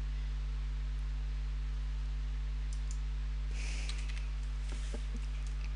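A few computer mouse and keyboard clicks over a steady low hum, with a short hiss about three and a half seconds in.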